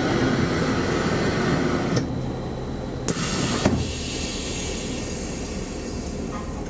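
Electric commuter train standing at a platform, its on-board equipment running with a steady hum and hiss. The noise drops about two seconds in, and two sharp clicks come a little after three seconds, leaving a quieter hum.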